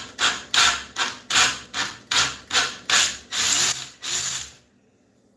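Cordless drill boring out a stripped bolt hole in a metal engine cover with a thread-repair kit's drill bit, enlarging it for a thread insert. The cutting comes in repeated scraping pulses, about two to three a second, and stops about four and a half seconds in.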